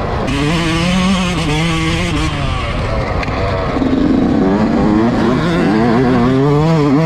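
Yamaha YZ125's two-stroke single-cylinder engine under way on a dirt track, its pitch rising and falling with the throttle. It eases off around the middle and climbs again near the end.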